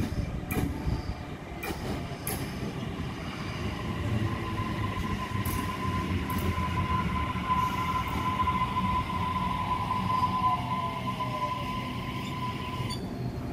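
Sydney Trains Waratah double-deck electric train running past along a curved platform: a steady rumble with a few sharp clicks in the first seconds, then a steady high-pitched wheel squeal from about four seconds in. A lower whine falls in pitch shortly before the end.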